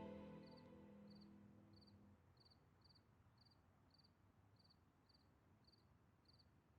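Background music fading out over the first two seconds, then near silence with faint, regular cricket chirps about twice a second.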